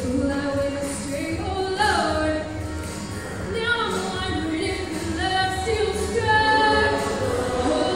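A female soloist singing a pop song through a microphone, with a wavering, vibrato-laden melody over steady backing music and a choir behind her.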